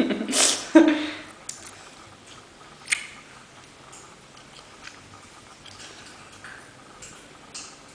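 A woman's voice briefly in the first second, then soft scattered clicks and taps of a tiny hairless kitten being handled close to the microphone, the sharpest about three seconds in.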